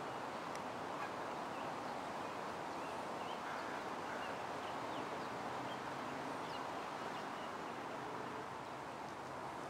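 Outdoor ambience: a steady hiss with many short, faint bird chirps scattered throughout.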